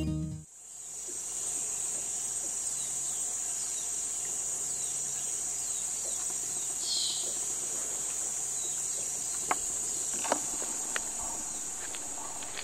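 Tropical ambience: a steady high-pitched insect drone, with a series of short falling bird chirps in the first half and one louder chirp partway through. A few sharp clicks sound near the end.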